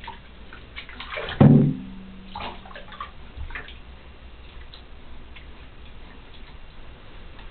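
Bath water splashing and sloshing around small children in a bathtub, with one loud knock about one and a half seconds in, followed by scattered small splashes and taps.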